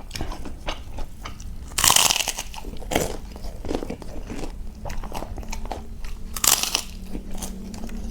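A person chewing crunchy fried food close to the microphone: a run of quick crunching clicks, with two loud, crisp bites, one about two seconds in and one near the end.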